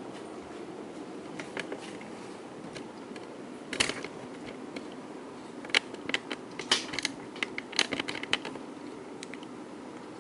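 Kenroy ceiling fan running on high with a steady whir. Irregular sharp clicks and ticks come over it, a few about four seconds in and a quicker run between about six and eight and a half seconds.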